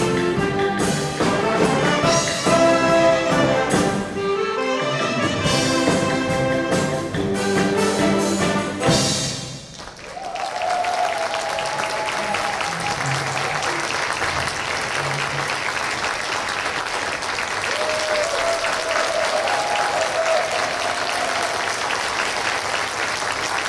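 A wind orchestra of brass, woodwinds and percussion plays the last bars of its encore, ending on a final accented chord about nine seconds in. The audience then breaks into steady applause.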